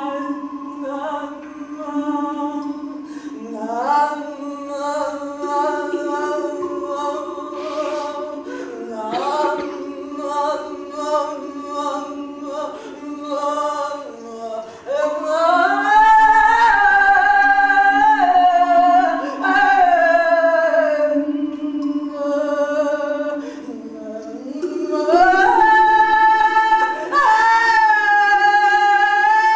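A woman's voice singing wordless, long sliding notes over a steady low drone. The voice grows loudest in long held notes past the middle and again near the end.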